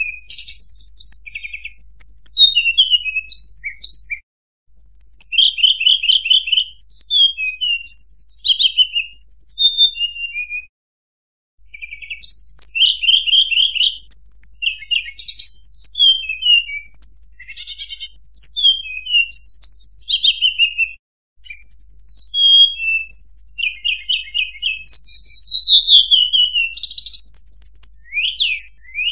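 Hill blue flycatcher (tledekan gunung) singing, played as a lure call: loud, high warbled phrases of quick falling whistles and fast trills. The song comes in long runs broken by short pauses about four, eleven and twenty-one seconds in.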